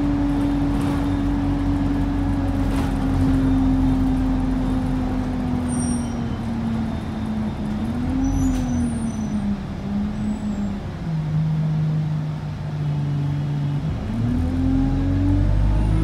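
Alexander Dennis Enviro 200 bus heard from inside, over its low engine and road noise. A steady whine sinks slowly and then in steps as the bus slows, then rises again near the end as it pulls away. This rising whine is the odd sound this bus makes when accelerating.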